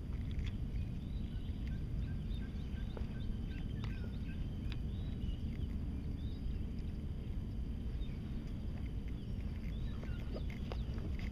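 Steady low outdoor rumble, with faint short bird chirps and whistles scattered through it and a few soft clicks.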